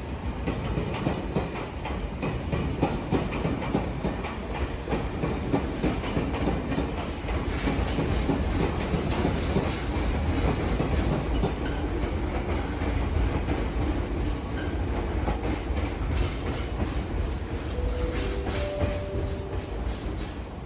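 Meitetsu 1200 series electric train running past and braking as it comes into a station, its wheels clicking over rail joints above a steady rumble. Near the end a few short, steady pitched tones sound.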